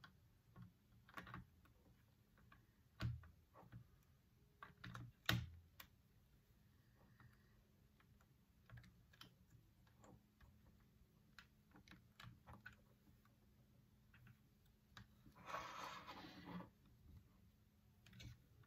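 Faint, scattered clicks and taps of plastic toy building bricks being handled and pressed together, with a brief rustling noise lasting about a second near the end.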